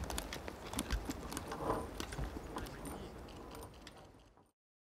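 Running footsteps with loaded military gear rattling and knocking at each stride. The sound fades out and stops near the end.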